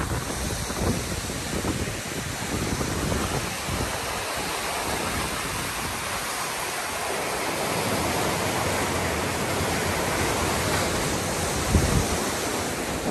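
Floodwater pouring over a low-head dam and churning through the standing waves below it: a steady rush of water. Wind gusts on the microphone briefly near the start and again near the end.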